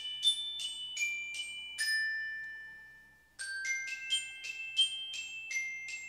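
Short glockenspiel-like jingle of struck bell notes, about three a second, one phrase ending on a long ringing note that fades away about three seconds in, then the phrase starting again.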